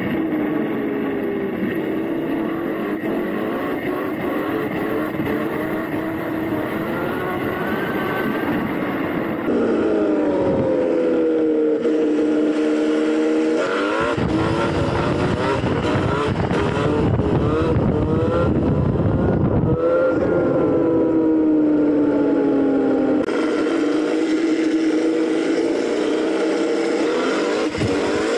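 CZEM Drill One Evo electric dirt bike's motor whining, its pitch gliding up and down as the bike speeds up and slows, over wind and tyre noise. The sound changes abruptly several times.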